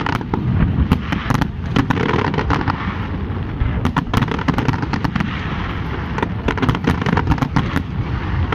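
Aerial fireworks display going off in a dense, continuous barrage of booms and crackling bangs, with the sharp reports coming thickest about four seconds in.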